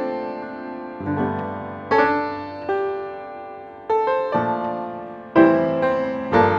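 Background piano music, with notes and chords struck every second or so and left to ring down.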